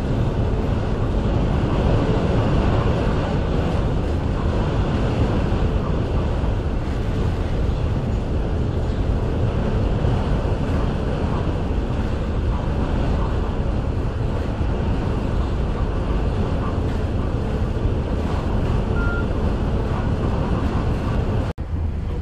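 Steady low rumble and hiss aboard a general cargo ship under way, with wind buffeting. A short faint beep sounds near the end.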